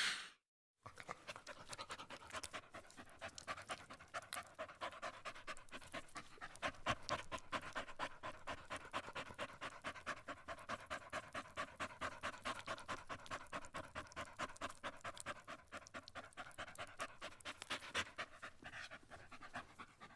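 Dog panting in quick, even breaths.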